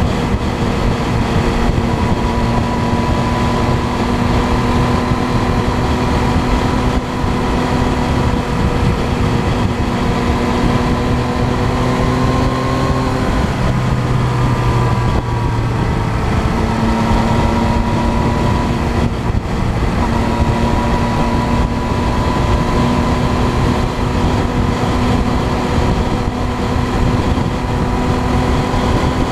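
Engine of a moving road vehicle running at a steady note under heavy wind and road noise. Around the middle the engine note drops away and returns a few seconds later.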